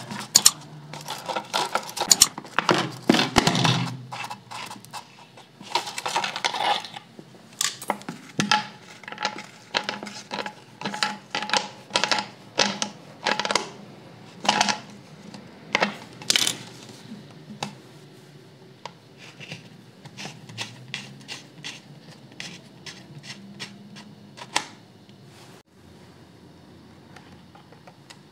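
A plastic soda bottle handled and worked with pliers while a metal valve fitting is tightened into its side: crackling plastic with many sharp clicks and taps, busy through the first half and sparser toward the end.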